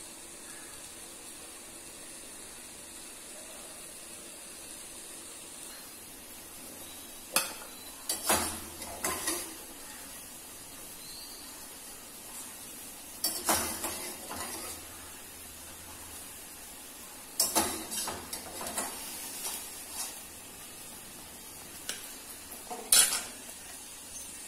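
A metal spoon clinking and scraping against cookware in several short bursts, over a steady hiss.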